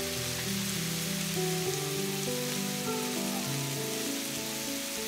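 Strips of beef sizzling steadily in hot oil in a frying pan, under soft background music with slowly changing notes.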